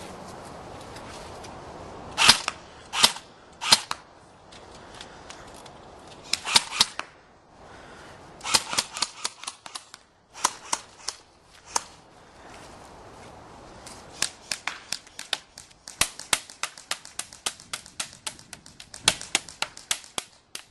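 Electric airsoft rifles firing: a few single shots, then rapid bursts of sharp clicking shots, with a long stretch of bursts in the second half.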